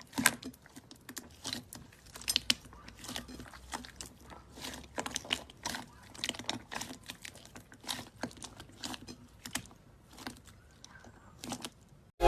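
Slime being squeezed and poked by hand, giving irregular sticky clicks and small pops, several a second.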